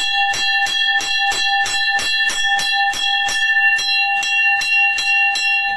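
A puja bell rung rapidly and evenly, about three strikes a second, its clear tone ringing on between strikes.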